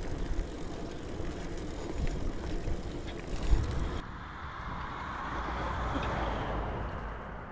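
Wind rush on the microphone and tyre noise from a bicycle riding along a road, with a steady low rumble. After a cut about four seconds in, a broad rushing swell builds to a peak and fades.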